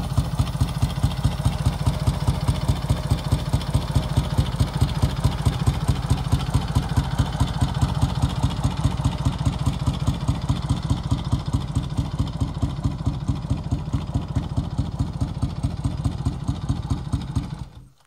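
Vincent 998 cc V-twin motorcycle engine idling with a steady, even beat after its first start following winter storage. It cuts off suddenly near the end as the engine is shut down.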